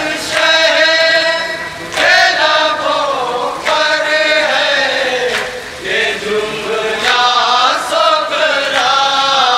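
Men chanting a nauha, a Shia Muharram lament in Urdu, in long drawn-out melodic phrases.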